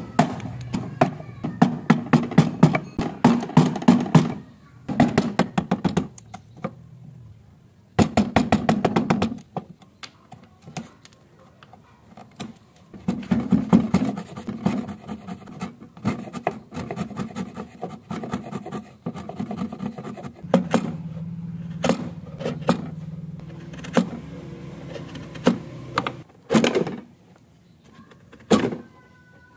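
Steel wood chisel chopping and prying waste out of a sawn notch in a timber beam: bursts of quick, sharp taps and knocks with wood chips splitting away, broken by short pauses.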